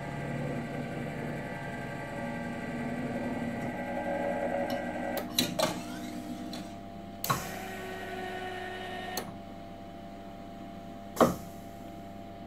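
Stepper motors of a conveyor and robot positioning system running, with several held whining tones that change pitch and stop as the axes move and halt. A few sharp mechanical knocks come with the stops: two close together in the middle, and the loudest near the end.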